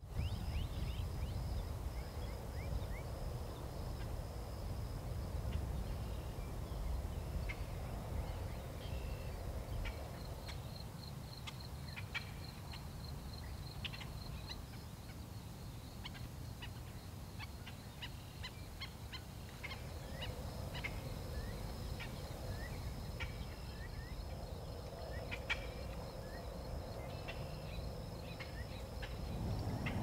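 Outdoor nature ambience: many short bird chirps and calls over a steady low wind rumble, with a thin, steady high-pitched tone above them.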